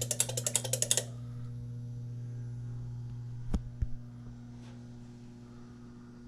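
A rapid, even run of mechanical clicks, about ten a second, stops about a second in, leaving the steady electrical hum of the switched-on pinball machine. Two sharp clicks come about three and a half seconds in.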